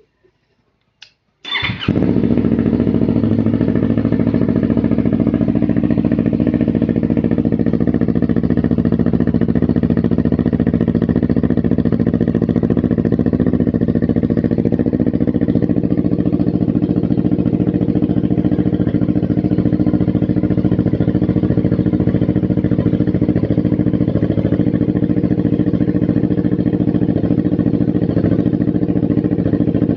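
Yamaha R3's parallel-twin engine starting after a brief click about a second in, catching at once and then idling steadily through a modified muffler.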